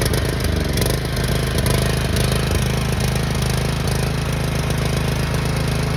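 6500-watt portable gas generator's small engine, just fired after a pull-start, running steadily on choke after a carburetor clean-out and three years unused.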